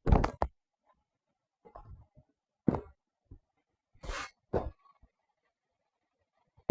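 Fireworks going off: a loud cluster of bangs at the start, then a few scattered sharp pops and a short crackling hiss, with silence in between.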